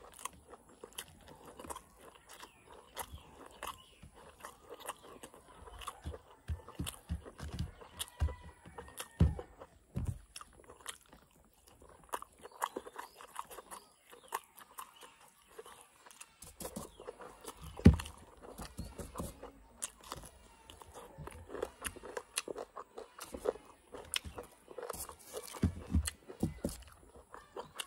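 A person eating with his hands close to the microphone: irregular chewing, crunching and wet lip smacks as he eats mutton curry with rice and raw green stalks. One sharp knock, the loudest sound, comes about 18 seconds in.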